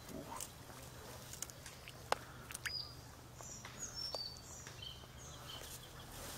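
Faint small splashes and clicks as a hooked chub is held and handled in shallow water, with several short high bird chirps in the middle.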